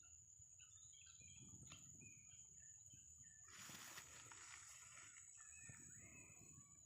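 Near silence: faint outdoor ambience with scattered small bird chirps and a steady high thin whine, broken by a brief soft rustle about halfway through.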